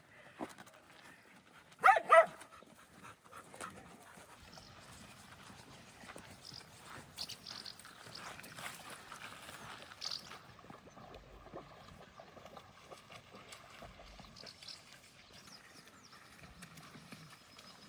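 Dog barking twice in quick succession about two seconds in, then faint rural background.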